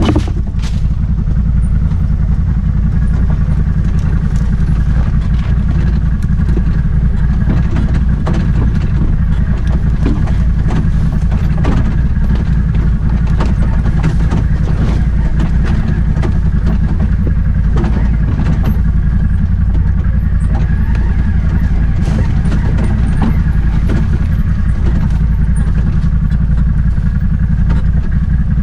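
Off-road vehicle's engine running steadily on a rough trail, with a steady whine on top and scattered knocks and clatter.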